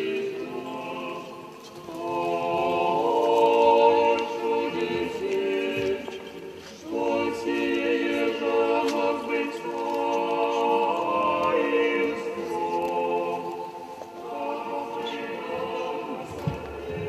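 Orthodox church choir singing unaccompanied, in long held chords sung phrase after phrase with short breaths between them.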